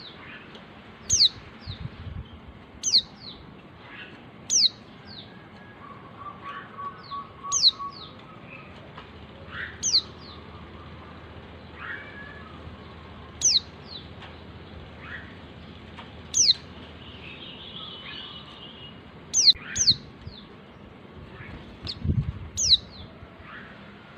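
Female white-eye (Zosterops) giving a sharp, high call note that falls steeply in pitch, repeated every second or two, sometimes twice in quick succession. Fainter chirps and a short rapid trill from other birds sound behind it.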